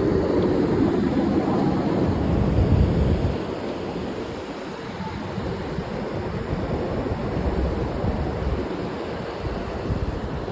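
Wind buffeting the phone's microphone high up on an open tower, in a steady rushing rumble. It is stronger for the first three seconds or so, then eases.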